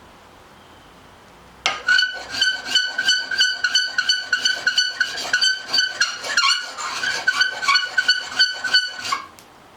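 Steel scraper blade stroked rapidly back and forth on a coarse diamond sharpening stone, squeaky, with a steady high-pitched squeal over quick rhythmic rasping strokes. It starts about a second and a half in and stops shortly before the end.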